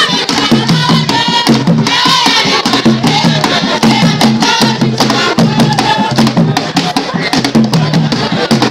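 Ghanaian traditional drum ensemble: several large barrel drums beaten with sticks in a steady, repeating rhythm, with many sharp, crisp strokes layered over the deep drum pulse.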